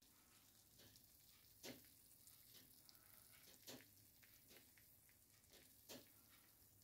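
Near silence with faint crackling from a hot morbiflette, a baked potato and morbier cheese gratin, sizzling in its glass dish. A few sharper pops come about two seconds apart, with smaller ticks between them.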